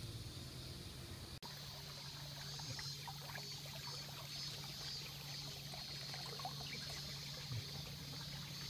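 Shallow stream water trickling, with scattered faint small ticks over a steady high hiss.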